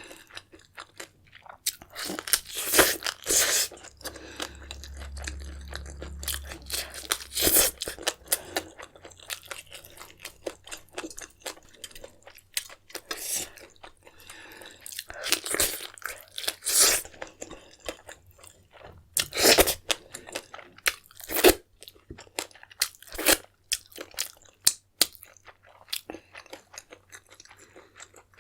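Close-miked chewing and crunching of food, with irregular wet mouth sounds and several louder bites scattered through it.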